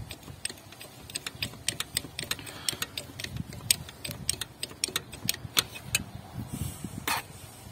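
Irregular metallic clicks and ticks, several a second, from a 15 mm open-end spanner working the control injector of a VW 1.9 TDI (AFN) diesel back and forth in its bore to ease it out after it has broken free. A louder click comes near the end.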